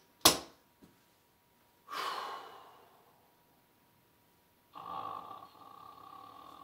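Casino chips clicking down onto a felt craps layout as odds bets are placed, one sharp click the loudest. Then a man breathes out twice: a short breath about two seconds in, and a longer, steadier one in the second half.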